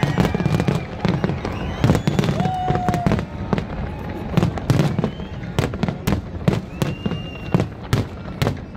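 Fireworks display: aerial shells bursting in rapid succession, many sharp bangs over a continuous low rumble.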